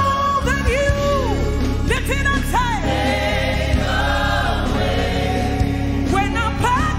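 Live gospel worship song: a woman sings lead into a microphone, with choir and congregation voices singing along over instrumental backing.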